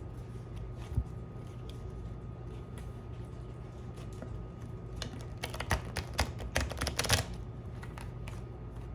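Oracle card deck being shuffled by hand: a quick run of card clicks and slaps past the halfway point, after a single soft thump near the start, over a steady low hum.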